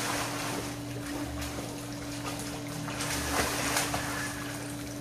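Swimming pool water splashing as swimmers kick and stroke, loudest at the start and again about three to four seconds in, over a steady low hum.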